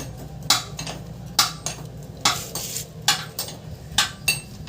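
Light metallic clinks, about one a second, as a new timing chain is handled and fed into a motorcycle engine, its links knocking against the metal.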